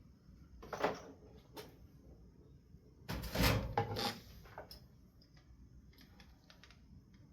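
Wooden shelf pieces being handled on a work table: a knock about a second in, a louder clatter of about a second near the middle, then a few light clicks.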